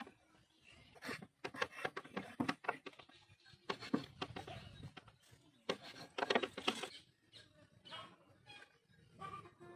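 Raw goat tripe being handled and cleaned: wet squelching and slapping as pieces are pulled apart and moved, and a knife scraping against the tripe on a wooden board. The sounds are irregular, with the loudest scrapes around four seconds in and again six to seven seconds in.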